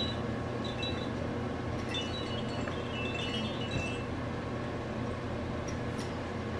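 High tinkling chime-like tones in short runs: one near the start, one about a second in, and a longer run from about two to three and a half seconds. A steady low hum runs underneath.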